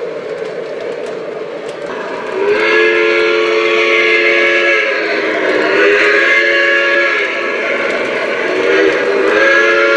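Model steam locomotive's onboard sound system blowing a steam whistle, a Lionel Legacy Pennsylvania Railroad B6sb in O scale: two long blasts, then shorter ones near the end, over the train's running noise.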